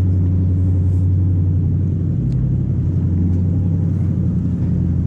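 420-horsepower jet boat engine running at low throttle, a steady low drone.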